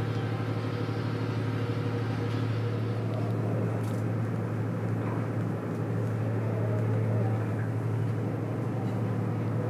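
Steady low drone of the tugboat's diesel engines running, heard inside the crew quarters.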